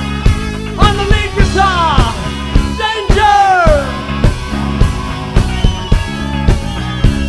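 Live rock band playing: a steady drum-kit beat with electric guitar and bass, and a lead line of sliding, falling notes between about one and four seconds in.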